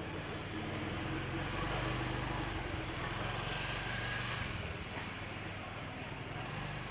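Street traffic: a motor vehicle's engine hum passing close by, swelling for the first few seconds and then easing off.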